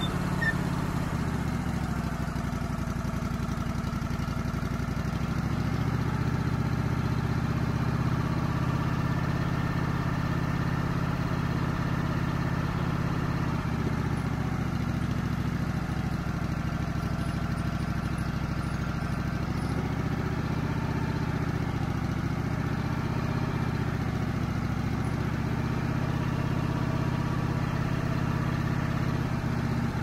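Wood-Mizer LX150 sawmill's engine running steadily, driving the band blade through a red pine log, its pitch sagging slightly and recovering a few times.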